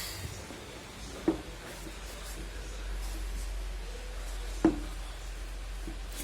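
Two short knocks, about three seconds apart, as parts or tools are handled, over a low steady hum.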